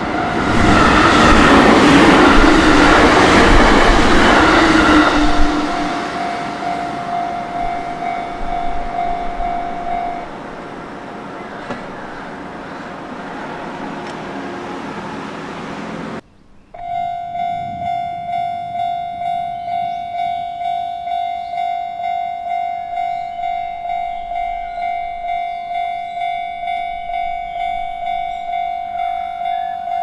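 Japanese railway level-crossing warning bell ringing, under the loud noise of a vehicle passing close by in the first few seconds. The bell stops about ten seconds in. After an abrupt cut it starts again as a steady, regular ding-ding while the warning lights flash.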